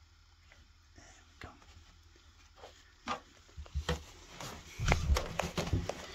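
Handling noise close to the microphone: scattered small clicks and taps, busier and louder from about three seconds in, with a few low thuds.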